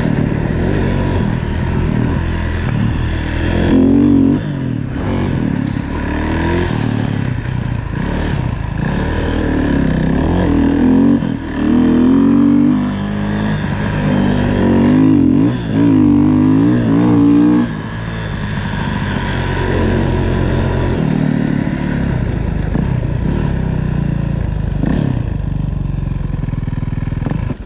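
Dirt-bike engine of a Timbersled snow bike under way, revving up and down again and again as it climbs through deep snow, with the hardest revs in the middle. It then settles into a steadier, lower run.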